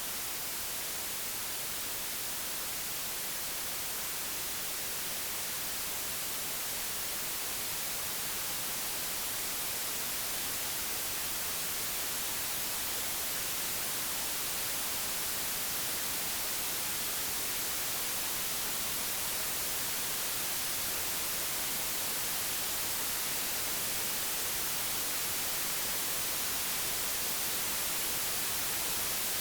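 Pure white noise generated by a program: a steady, even hiss with no tones or breaks, growing slowly a little louder over the stretch.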